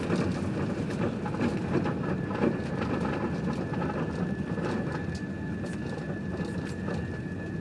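Cabin noise of an Airbus A380 rolling out on the runway after touchdown: a steady low rumble with scattered light knocks and rattles, easing slowly as the aircraft slows. A thin steady whine joins about three seconds in.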